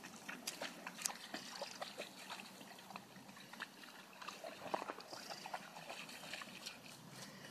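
An Irish Setter's paws splashing and wading through shallow lake water: a run of small, irregular splashes.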